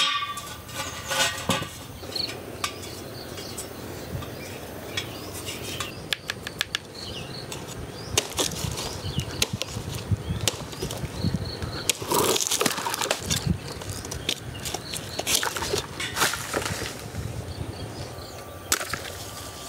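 Coconut palm fronds rustling and shaking, with many sharp snaps and knocks as a climber picks coconuts in the crown. The loudest rustling comes in a few separate spells.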